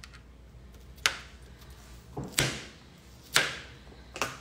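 Kitchen knife chopping through an onion onto a cutting board: four sharp knocks about a second apart.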